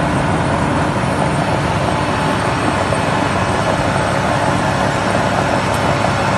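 Heavy diesel truck engines running steadily under load as a chained dump truck tows a stuck semi-trailer truck through snow.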